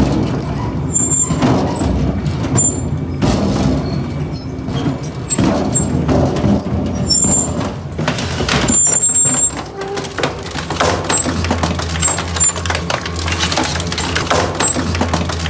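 Twin-shaft scrap shredder's hooked cutter discs tearing and crushing blue steel drums, a dense run of metal crunching, banging and screeching. A steady low hum of the machine comes up under it about two-thirds of the way through.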